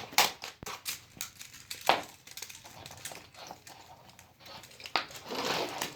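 Plastic fidget toys being handled and passed over, giving a string of irregular clicks, taps and knocks, with some rustling near the end.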